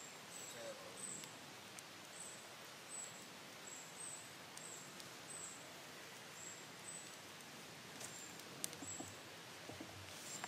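Quiet woodland ambience: a small bird's thin, high call repeated every half-second or so, over a faint steady hiss, with a few soft crackles from the campfire near the end.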